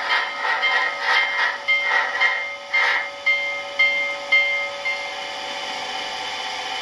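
DCC sound decoder of an HO-scale Rivarossi C&O 2-6-6-6 Allegheny steam locomotive model: steam exhaust chuffs slowing as the locomotive comes to a stop, then about four evenly spaced pings and a steady hiss while it stands.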